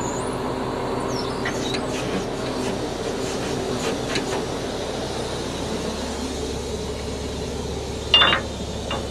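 Heavy-duty wrecker's diesel engine idling steadily, with a few light metallic clicks and one sharp metal clank about a second before the end as tow hooks and chains are handled at the underlift.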